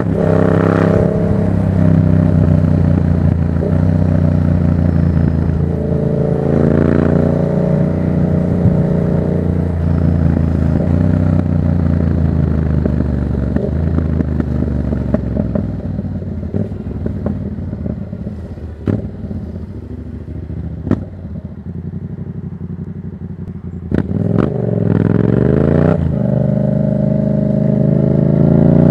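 2024 Yamaha MT-07's parallel-twin engine through an open Black Widow exhaust with no dB killer, pulling up through the revs and easing off in turn. In the middle it drops to a lower, quieter run with a few sharp pops, then accelerates hard again about four seconds from the end and holds high revs.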